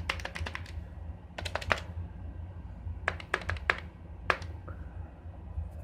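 Keys of a Compaq Portable's foam-and-foil keyboard being typed in short runs of clicks, four bursts spread over a few seconds, over a steady low hum. The keys are being pressed to test whether they register after their rotted foam pads were replaced with foil.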